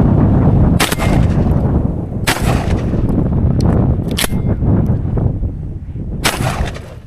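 Serengeti SR22 airsoft shotgun firing four single shots, each a sharp crack with a short tail, about one and a half to two seconds apart. A few lighter clicks fall around the third shot. Wind rumbles on the microphone throughout.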